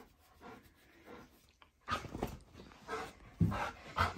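Bernese mountain dog panting in short huffs, about two a second, starting about two seconds in.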